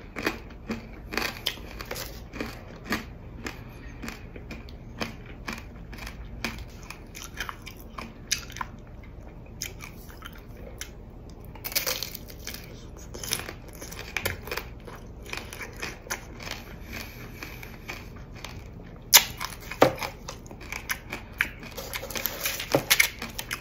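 Close-miked biting and chewing of tanghulu: the hard sugar-glass candy shell cracks into many sharp crunches as the candied fruit is chewed, with louder bites about halfway through and again near the end.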